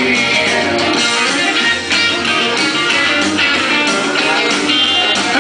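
Recorded country-style song with strummed guitar and a steady beat.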